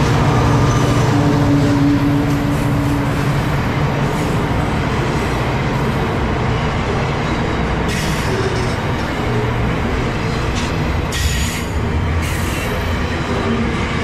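Diesel freight locomotive running as it passes close by, followed by container wagons rolling past on the rails. The engine hum fades after the first few seconds, leaving wheel and track rumble with a few brief high wheel squeals in the second half.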